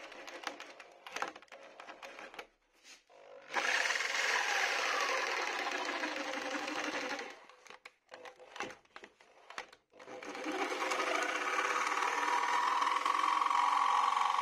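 A small power tool cutting into the unbreakable plastic body shell of a Traxxas X-Maxx, running in two stretches: from about three and a half seconds in for roughly four seconds, then again from about ten seconds on. Before it come light handling clicks and knocks.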